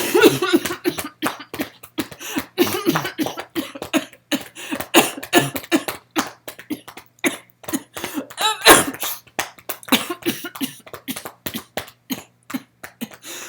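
A person in a long coughing fit: many short coughs in quick succession, with a particularly loud one about two-thirds of the way through.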